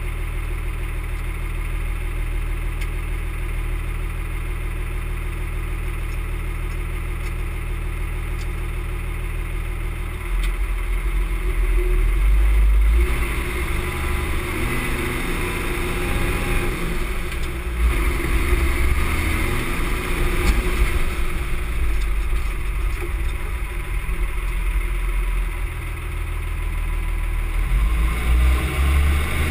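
M35A2 deuce-and-a-half's multifuel diesel engine, heard from inside the cab. It idles steadily for about ten seconds, then grows louder as the truck pulls away under load. The engine note rises and falls with the gear changes.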